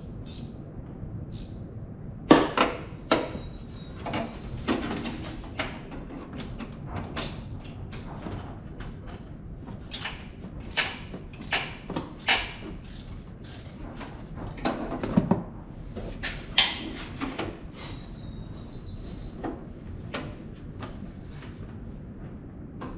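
Irregular clanks, clicks and knocks of hand tools and metal parts being handled during engine-removal work, a few of them louder, about two seconds in and again around fifteen to seventeen seconds in, over a steady background hum.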